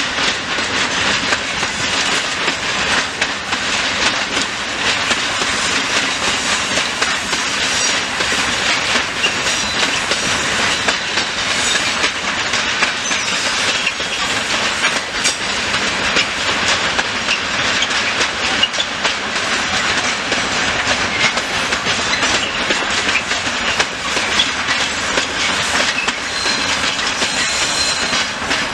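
Freight train of tank wagons rolling by over the rails, a steady clatter and rumble of wheels over rail joints. A thin high wheel squeal comes in briefly near the end.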